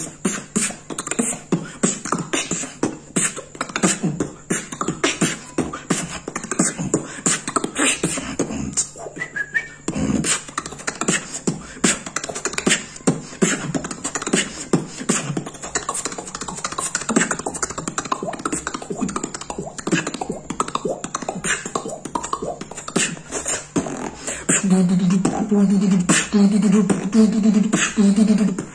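Solo human beatboxing: a fast run of rhythmic percussive clicks and pops made with the mouth. About 25 seconds in, a loud hummed bass line comes in, pulsing in time under the beat.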